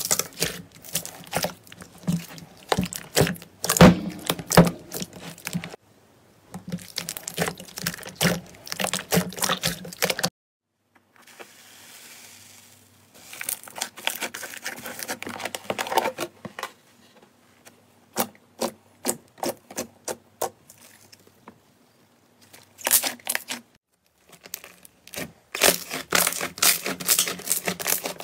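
Slime being squeezed and kneaded by hand, giving many quick sticky pops and crackles in uneven runs, with two short silent breaks.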